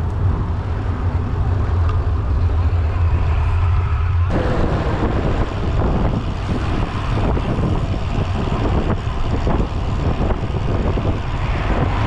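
Wind buffeting the microphone of a camera carried on a moving road bicycle, over road noise. A steady low rumble changes abruptly about four seconds in to louder, gusty buffeting.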